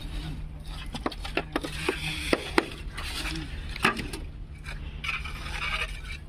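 Steel hand trowels scraping across wet concrete and clinking against the steel edges of a precast wall-panel mould, a string of sharp metallic taps between stretches of scraping, over a steady low hum.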